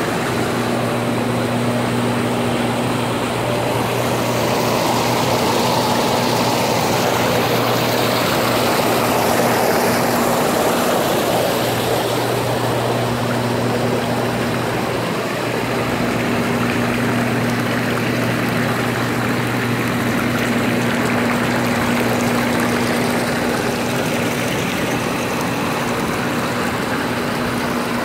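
Pacifica PHT4000 hot tub's jets running in massage mode, churning the water with a steady rushing sound over a low pump hum that drops out for moments now and then.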